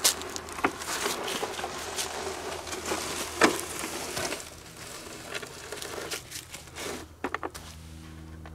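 A long wooden box of pine boards being handled and set down on wooden sawhorses: scattered wooden knocks and bumps, with rustling and footsteps on dry leaves. A quick run of knocks comes about seven seconds in as the box is lowered onto the sawhorse.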